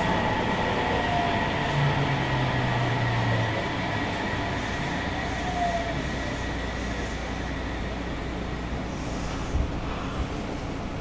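Running noise inside a Sendai Subway 1000N series car as it slows for a station: a steady wheel-and-track rumble with faint falling motor tones, easing slightly in level, and a short knock near the end.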